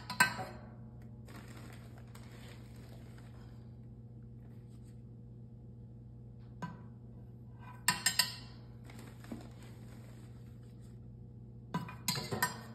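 Steady electrical hum from a Capsugel CAP-8 capsule filling machine. Three short clusters of sharp metallic clinks come over it: one at the start, one about eight seconds in, and one near the end.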